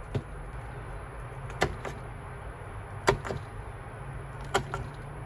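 A tool punching the truck bolt holes through clear griptape from the top of a skateboard deck: four sharp pops, one about every second and a half.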